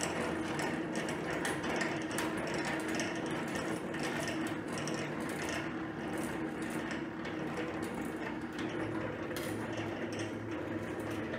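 Motor-driven Dadant stainless steel radial honey extractor running with a steady hum, its reel spinning the frames to sling the honey out against the drum wall.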